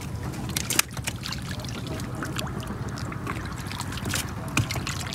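Scattered small splashes and drips of water as hands and a net work the shallow edge of a tarp-lined fish pond, with a steady low hum underneath.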